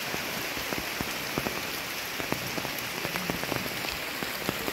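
Rain falling steadily, with many individual drops striking sharply close by.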